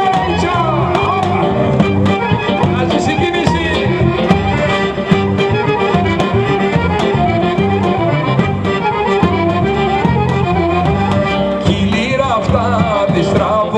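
Accordion and a large double-headed bass drum (davul) playing a lively Greek folk dance tune, with steady drum beats under the accordion melody.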